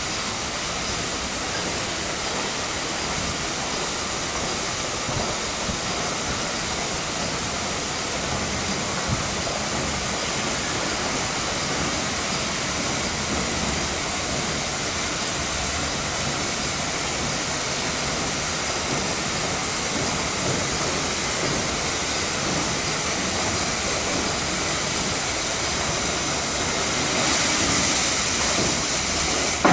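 WashTec EasyWash rollover car wash at work: a steady hiss of water spray and spinning brushes on a car, growing a little louder near the end.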